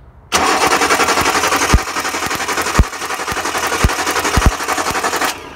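Starter motor cranking the Datsun 260Z's L28 straight-six for about five seconds without the engine catching, then stopping abruptly. A few sharper clicks stand out over the steady rhythmic churn.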